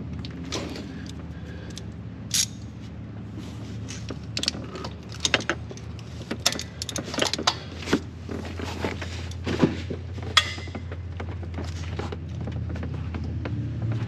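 Scattered metallic clicks and clinks of a socket, extension and ratchet being worked down onto a spark plug deep in an engine bay, over a steady low hum.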